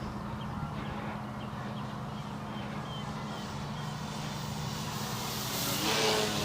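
Electric FMS P-51D Mustang RC plane flying by, its motor and propeller whine swelling to a close pass about five and a half seconds in, then falling in pitch as it goes past.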